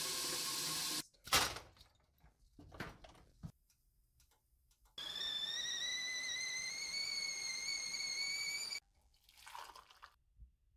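Tap water running into an enamel kettle for about a second, then a few clunks. Then the stovetop kettle whistles at the boil, a single high whistle rising slightly in pitch for nearly four seconds before it cuts off, and near the end hot water is poured faintly into a mug.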